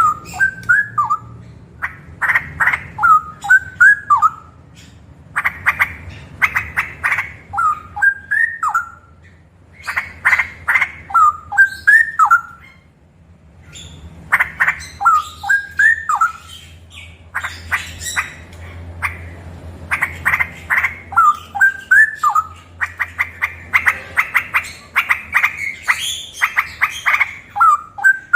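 Male straw-headed bulbul (cucak rowo) singing loudly. Each phrase opens with a fast run of sharp notes, the rolling 'ropel', and ends in a short liquid warble that bends up and down. The phrase repeats every three to four seconds, with a longer pause about halfway.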